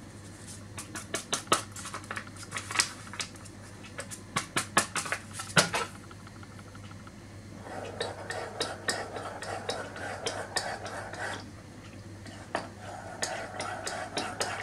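Metal spoon stirring in a ceramic mug, scraping round the inside to dissolve flan powder in a little cold milk. A few sharp clicks of spoon and mug come first; the steady scraping begins about eight seconds in and pauses briefly near twelve seconds.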